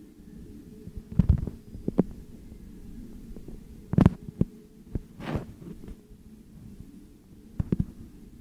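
Muffled low rumble of a passing double-stack freight train, with irregular heavy thumps, often in close pairs, as wheels pass over the track. It sounds dull and cut off at the top, as if played back through a screen's speaker and re-recorded.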